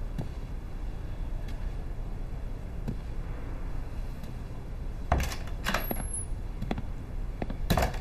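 A door opening: a few clunks and clicks, the loudest about five seconds in and again near the end.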